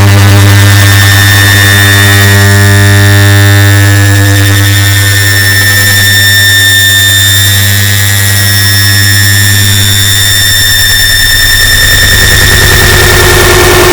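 Air conditioner start-up sound, repeated and stacked into a very loud, distorted drone: a strong steady low hum with a high whine over dense hiss. The hum thins out a little after about ten seconds.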